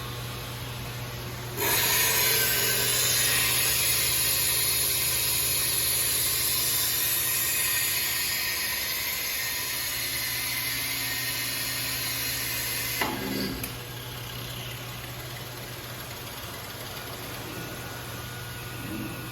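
Neptun Quickmill 160-30 NC CNC glass working center with its tool working the glass: a harsh rasping noise starts suddenly about a second and a half in and stops abruptly with a knock near the end. The machine's steady hum runs underneath throughout.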